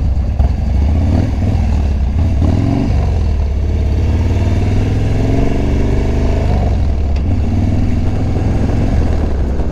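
Harley-Davidson Dyna Street Bob V-twin motorcycle engine running at low speed, its note climbing through the middle and dropping back about seven seconds in.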